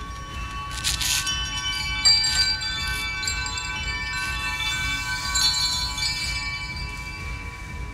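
Wind-chime-like ringing tones, many high pitches held and overlapping in a shimmering wash, from the film's soundtrack. Short hissy noises cut through it about a second in and again around two and a half to three seconds.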